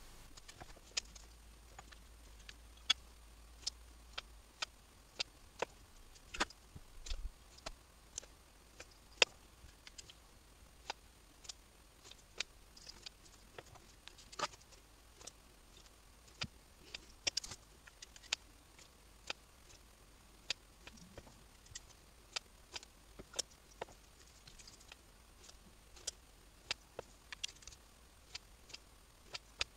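Irregular light clicks and taps, about one or two a second: a small brush and steel accordion reed plates knocking against a wooden reed block while the reeds are waxed in.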